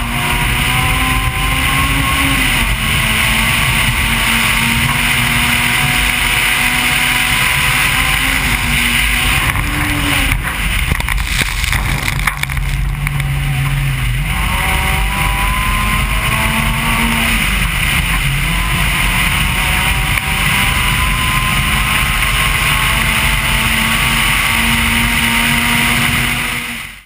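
Rally car engine running hard on a gravel stage, its note repeatedly rising and falling back as the driver shifts up through the gears, over a steady hiss of tyres on gravel and wind. About midway the engine note wavers and drops to a lower steady tone for a couple of seconds before climbing again.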